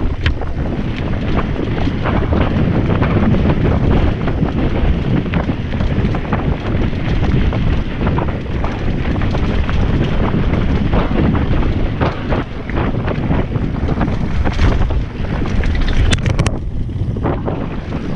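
Mountain bike running fast down a dry dirt singletrack, heard from a camera mounted on the bike: loud wind buffeting the microphone and tyres rumbling over the ground, with constant rattling knocks from the bike over bumps. A quick cluster of sharp clicks comes near the end.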